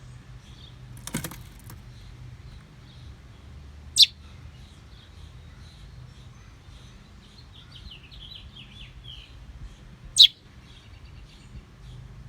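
A small bird chirping close by: two loud, sharp chirps about six seconds apart, with a run of fainter quick chirping notes between them. A brief rustling noise comes about a second in, over a steady low hum.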